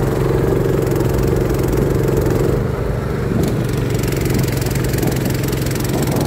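Small boat's engine running loud and steady at speed, with the rush of the hull through the water.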